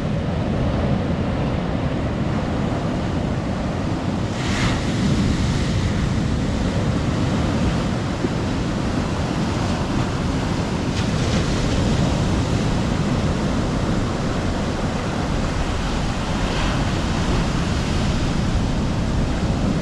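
Sea surf: waves breaking and foam washing up a sandy, pebble-strewn beach in a steady rushing wash, swelling briefly about four seconds in and again near the end.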